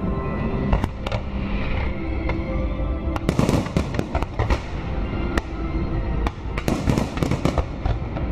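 Fireworks display: a rapid, irregular string of bangs and crackles from shells bursting, several a second, with music playing underneath.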